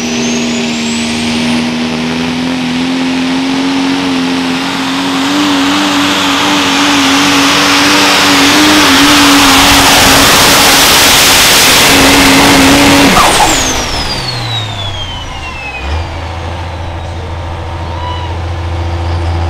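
Super stock Dodge pulling truck's turbocharged Cummins diesel running flat out under the sled's load, a high turbo whistle over a steady engine note that grows louder. About thirteen seconds in the throttle lifts at the end of the pull: the note cuts off, the whistle falls away, and the engine settles to a low idle.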